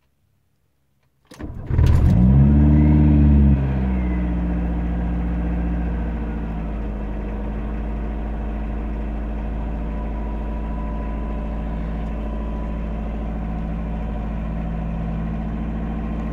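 1981 VW Rabbit pickup's 1.6-litre IDI turbo diesel engine cranking and catching about a second in. It revs up briefly, falls back, and settles into a steady idle from about four seconds in.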